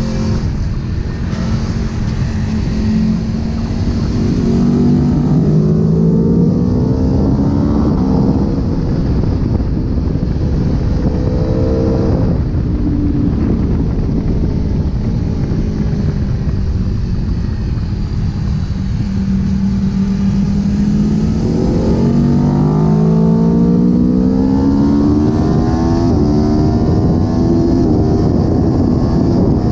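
Aprilia Tuono V4's V4 engine pulling hard under acceleration, its revs rising in long climbs and dropping sharply at a gear change, with a slower fall in revs in the middle before it climbs again. Wind rush runs under the engine sound.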